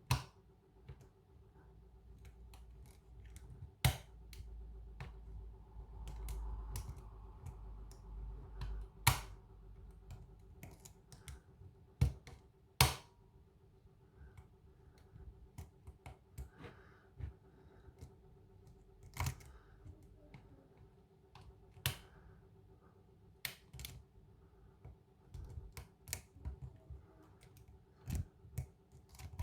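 Lock pick and tension wrench working the pins of a pin-tumbler cylinder lock with ammo-style security pins: irregular small clicks as pins are lifted and set, a few much sharper than the rest, with a low rubbing of handling from about four to nine seconds in.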